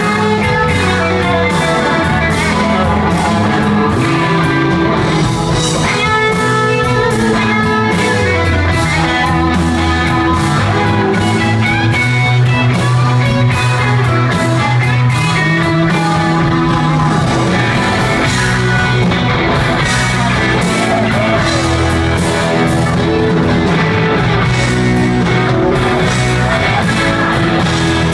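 Rock band playing live: a guitar solo over bass and a drum kit, loud and continuous.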